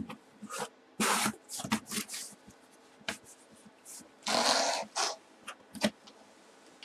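Cardboard box being opened by hand: flaps pushed back and a white inner box scraped and slid against the cardboard, heard as a series of short rustles, scrapes and taps, the longest scrape about four and a half seconds in.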